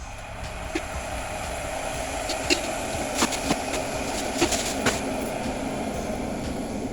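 Electric kettle heating water towards the boil: a rumbling hiss that builds up, with several scattered clicks and pops.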